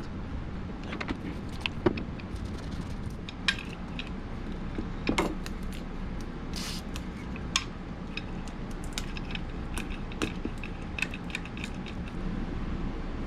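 Small metal parts of a door lock clicking and clinking as they are handled and cleaned, with a short hiss about seven seconds in, over a steady low background rumble.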